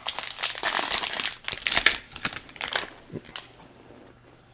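The plastic wrapper of a Topps 2022 Series 1 baseball card fat pack being opened and crinkled by hand, in dense rustling bursts that die away after about three seconds.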